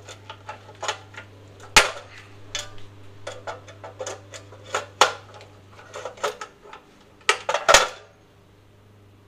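Hand pop-rivet gun being squeezed to set rivets in aluminium: a run of sharp metallic clicks and snaps, the loudest about 2 s, 5 s and near 8 s in.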